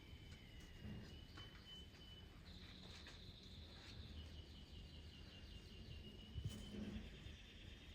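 Faint high-pitched chirping and rapid trilling from small animals, over a low background rumble, with a few soft clicks.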